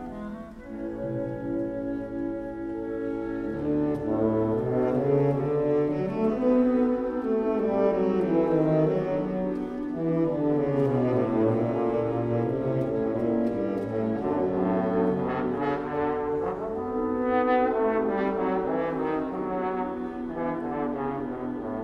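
Live orchestra playing an overture with the brass prominent: sustained chords over a low line that climbs and falls.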